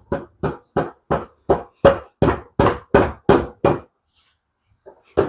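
About eleven evenly spaced knocks, roughly three a second, stopping near the four-second mark, then a single knock near the end: tapping on the parts of a 12A rotary engine during teardown.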